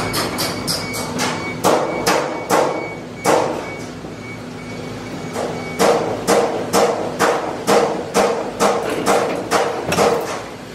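Metal being struck repeatedly with a hammer, about two to three blows a second, breaking off for a couple of seconds in the middle. A truck engine runs steadily underneath.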